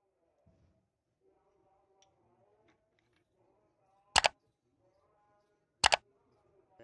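Two sharp knocks about a second and a half apart, each a quick double hit, typical of hammer blows on metal work in a vise.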